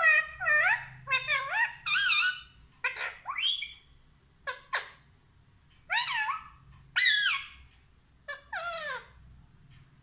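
Rose-ringed parakeet (Indian ringneck) making a string of short, high, squeaky calls that bend up and down in pitch. There is a quick run of calls over the first four seconds, then four more spaced about a second or so apart.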